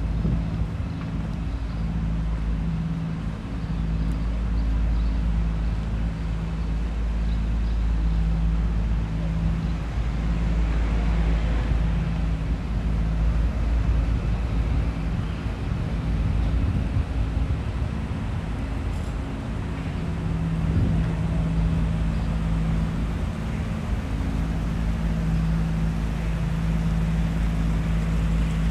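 Outdoor street ambience: road traffic with a steady low engine hum and a deep rumble. The hum fades for a few seconds past the middle, then returns.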